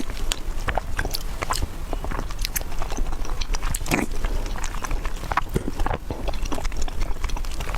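Close-miked mouth sounds of someone chewing soft, sticky glutinous rice balls (tangyuan): irregular wet smacks and clicks.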